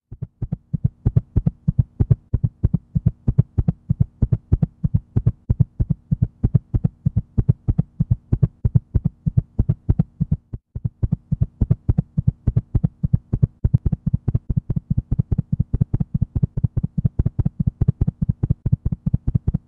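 Heartbeat sound effect: fast, even low thumps, about four a second, over a steady low hum, with a brief break about ten seconds in.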